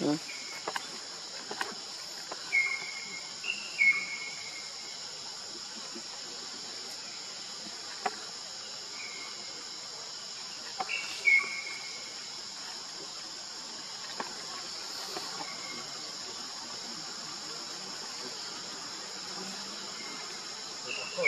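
Steady high-pitched insect drone, with a series of short, falling high calls from an animal, loudest in the first few seconds and again about eleven seconds in, and a few sharp clicks.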